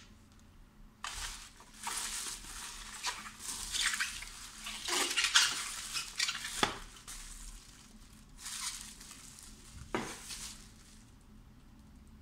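Plastic bubble wrap crinkling and rustling as it is pulled open and unwrapped from a small box, in uneven bursts with a couple of sharp clicks.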